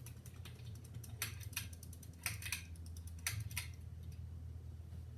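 Harbor Breeze Springfield ceiling fan running on high with a steady low motor hum, its capacitor going bad, while a run of irregular light clicks and ticks comes and goes over it.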